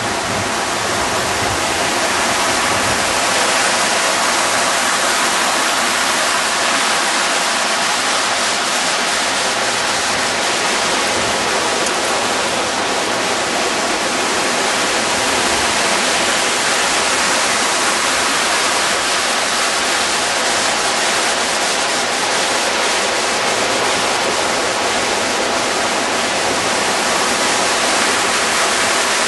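Steady rushing and splashing of a fountain: a vertical water jet falling into its basin and water spilling over a long ledge into a shallow pool.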